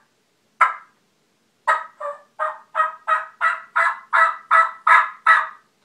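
A hunter's turkey call imitating a hen turkey. Two single notes, then a run of about eleven yelps at roughly three a second, a calling sequence meant to locate a gobbler that has gone quiet.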